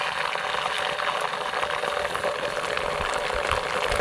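Chopped garlic and chili frying in hot oil in a pan, sizzling and bubbling steadily with oyster sauce freshly stirred in.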